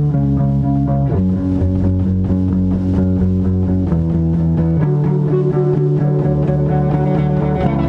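Electric guitars and bass guitar playing an instrumental rock piece at rehearsal volume, holding sustained chords that change every second or few.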